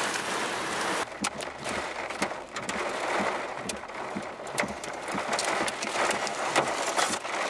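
Heavy storm rain and wind making a dense, loud hiss. About a second in it thins to a lighter hiss with scattered sharp taps, like drops or small debris striking.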